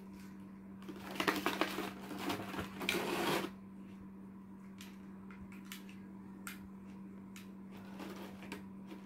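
Clear plastic blister-pack tray crinkling and crackling as headphones are pulled out of it, loudest between about one and three and a half seconds in, followed by scattered light clicks as the headphones' earcups and hinges are handled.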